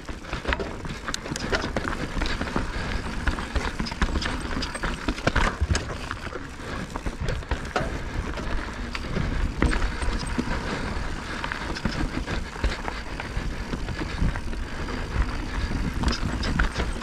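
Mountain bike riding down a dry, loose dirt and rock trail: tyres crunching over gravel, with frequent clatters and knocks as the bike rattles over bumps and stones, over steady wind noise on the microphone.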